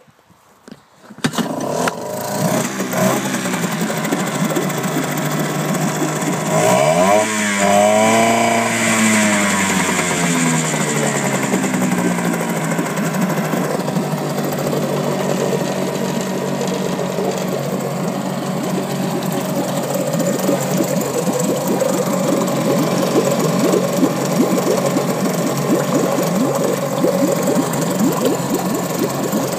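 Mariner 4 two-stroke outboard motor starting about a second in, then running. It is revved up once and falls back around a third of the way through, then runs on steadily with an uneven firing beat.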